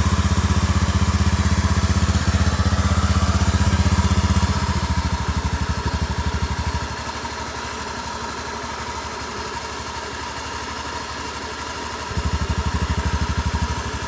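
Honda Beat FI scooter engine idling just after a start, with a rough, seething rattle like water about to boil in a pot. It runs louder for the first few seconds, settles lower about five seconds in, and rises again briefly near the end. The owner suspects a rusted or worn crankshaft bearing, since the noise does not change when the rear wheel is turned.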